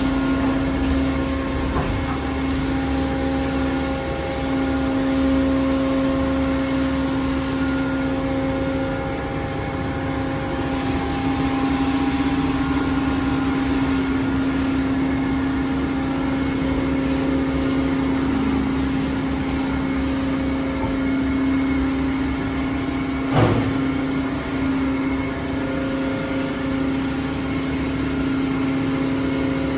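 Autec rollover car wash machine running: its motors and pumps hum steadily with a strong low tone over a hiss of spraying water, and there is one sharp knock about three-quarters of the way through.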